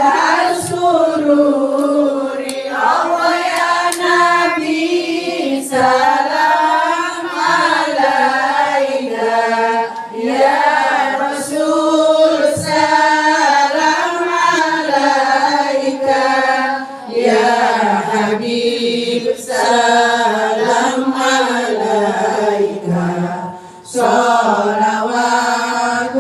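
Voices chanting an Arabic devotional rawi (Maulid) text in a slow melodic recitation, with long held and gliding notes and a few brief breaks between phrases.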